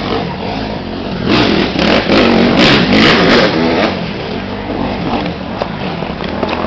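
Off-road motorcycle engine revving hard, its pitch rising and falling, loudest from about one to three and a half seconds in.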